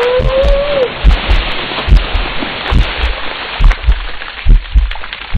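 A bucket of ice water pours over a person's head and splashes down onto their clothes and the ground, with a short cry that rises and falls in the first second as it hits. Dull low thumps recur about once a second throughout.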